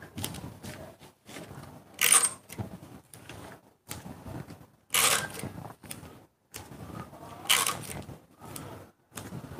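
Sheets of pattern paper being handled and joined together: paper rustling, with three short, sharp rasps about two, five and seven and a half seconds in.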